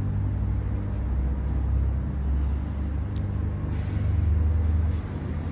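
A low, steady hum that swells slightly and eases off, with a faint click about three seconds in.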